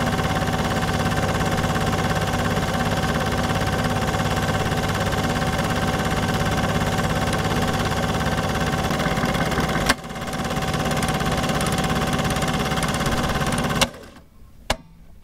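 Super 8 film projector running: a fast, even mechanical clatter with a steady whine over it. A sharp click comes about ten seconds in, then the machine stops abruptly with a click near the end, followed by one more small click.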